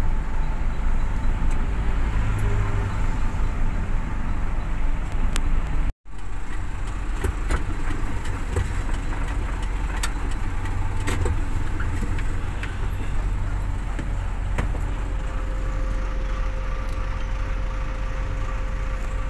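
Engine and road noise of a vehicle driving slowly, heard from inside its cab as a steady low rumble. The sound cuts out completely for a moment about six seconds in.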